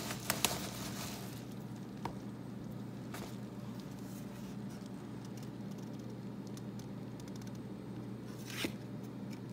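Packaging being handled and rummaged through: crinkly rustling and a few clicks in the first second, scattered small ticks after, and another brief rustle near the end, over a steady low hum.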